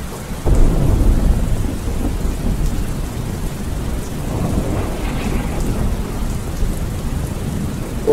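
Thunderstorm: a sudden loud clap of thunder about half a second in that rumbles away over a couple of seconds, then a softer roll of thunder around the middle, over steady heavy rain.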